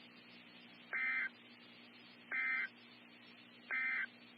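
Emergency Alert System end-of-message signal: three short bursts of warbling digital data tones, about a second and a half apart, over a faint steady hum.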